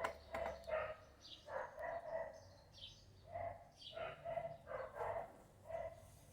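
A dog barking repeatedly, about a dozen short barks at an uneven pace, with a few high chirps in between.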